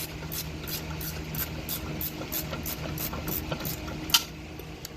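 Ratchet wrench clicking steadily, about three clicks a second, as it turns out a caliper bracket bolt, with one sharper metallic click about four seconds in.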